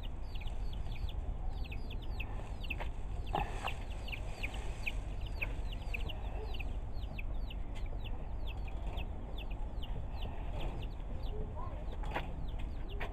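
Chicks peeping steadily: a continuous string of short, high, falling peeps, about two or three a second. Underneath is a low rumble, with a few soft knocks.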